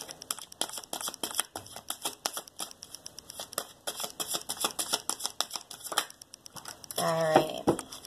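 A deck of Romance Angels oracle cards being shuffled by hand: a quick, dense clicking and flapping of cards. A brief voice sound comes near the end.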